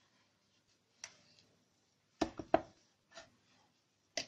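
Light knocks and clicks of hands handling flatbread on a plastic cutting board at a kitchen counter: a click about a second in, three quick knocks a little after two seconds, and a sharp click near the end.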